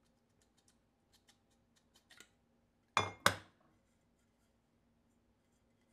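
Two sharp knocks about a third of a second apart, about three seconds in, after a few faint small clicks.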